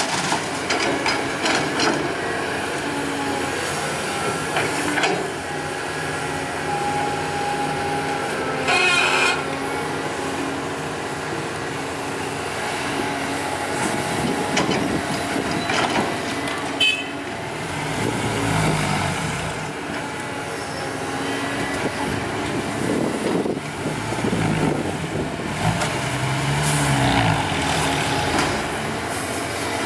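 Caterpillar 320D hydraulic excavator's diesel engine running steadily and labouring under hydraulic load as it digs, swings and dumps soil into a steel dump-truck bed. Several sharp clanks from the bucket and dirt hitting the bed, and twice the engine note swells up and falls back as the load rises.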